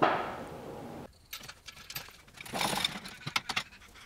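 Workshop work on a vehicle's engine bay: scattered sharp clicks and knocks of tools on metal, with a short rasping burst in the middle. A fading hiss stops abruptly about a second in.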